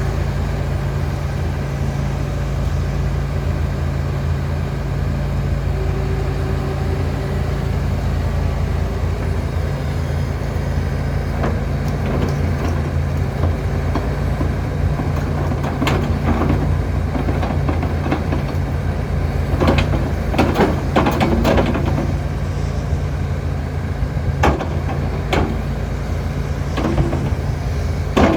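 John Deere 245G LC excavator's diesel engine running steadily under load. From about halfway through, a series of sharp knocks and clatters, several in quick succession around two-thirds of the way in, as trees are grabbed and dragged out of the steel roll-off bin.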